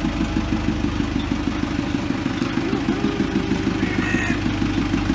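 Tractor engine running loud and steady close by, with an even pulsing beat, as the tractor carrying the homemade under-vine plough arrives.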